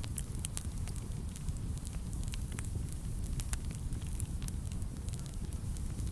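Wood fire burning in a fireplace: many small, irregular crackles and pops over a steady low rumble of the flames.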